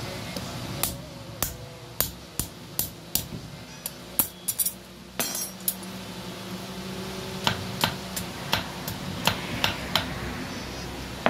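Small hand hammer striking a sickle's steel on a block anvil: sharp metallic blows with a short ring, in uneven runs, with a pause of about a second and a half past the middle.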